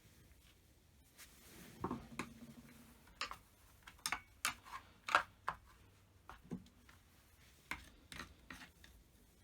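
Irregular clicks and light knocks of hand tools and small chainsaw parts being handled and set down, about a dozen, the loudest about five seconds in.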